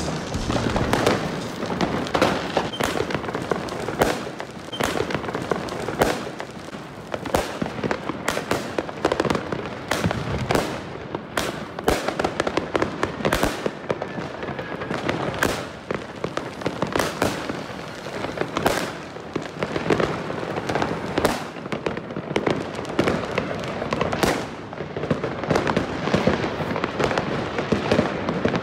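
Fireworks and firecrackers going off, a dense run of sharp bangs and crackles with no pause.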